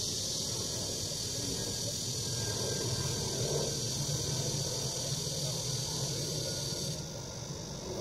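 A chorus of cicadas buzzing steadily and high-pitched over a shallow stream trickling across pebbles; about seven seconds in, part of the buzzing drops out and it thins.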